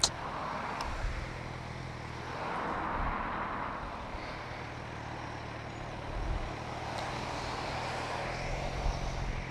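Motorcycle engine idling steadily while road traffic swells and fades past a few times, with a short click right at the start.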